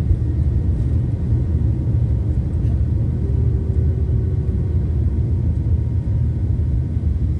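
Airliner's jet engines at takeoff thrust, heard from inside the passenger cabin during the takeoff roll: a loud, steady, deep rumble. A faint steady whine rides on top for a couple of seconds midway.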